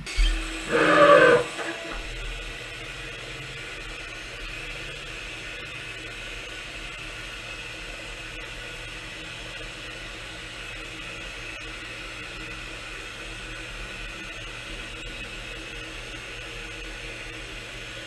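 Starrag Heckert CWK 500 horizontal machining centre running, a steady mechanical hum with faint steady tones. A short loud noise about a second in.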